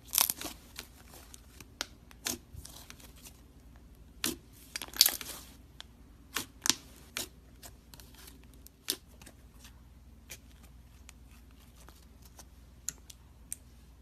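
Thick pink slime being pressed, poked and stretched by hand, giving off irregular sticky crackles and pops. The crackling is densest in the first few seconds and thins to scattered clicks later.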